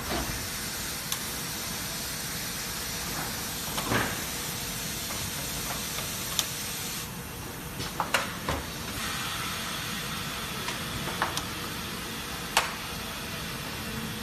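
Machinery giving a steady hiss, with scattered sharp clicks and a few knocks, a cluster of them about eight seconds in.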